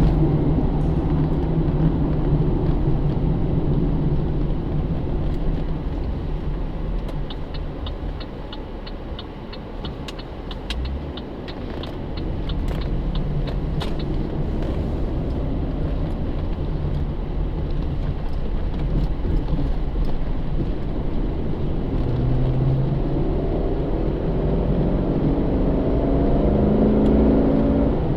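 2009 Pontiac G8 GT's 6.0-litre V8 heard from inside the cabin with tyre and road noise, cruising under light throttle. Around the middle it eases off and goes quieter for a few seconds while a light, rapid ticking sounds, then it pulls again, the engine note climbing near the end.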